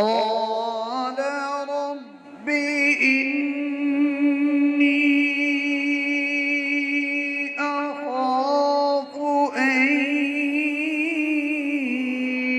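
A man's voice reciting the Quran in a drawn-out melodic chant, holding long notes with wavering ornaments, with a short breath break about two seconds in.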